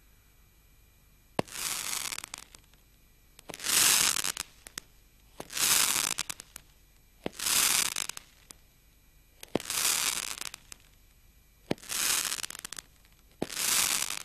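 Roman candle firing seven shots about two seconds apart, each a sharp pop as the star is launched, followed by about a second of crackling as the crackling star burns.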